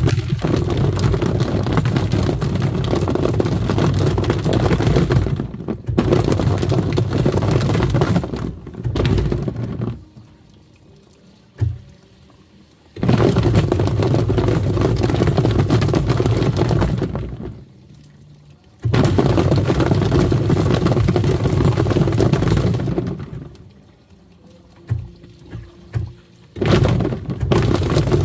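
Twin-tub washing machine's wash tub churning foamy water, its motor running in spells of several seconds that start and stop suddenly, with short pauses between.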